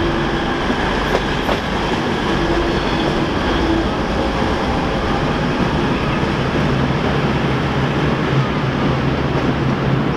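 V/Line VLocity diesel multiple unit passing and moving away along the track: a steady, loud drone of diesel engines mixed with wheel noise on the rails.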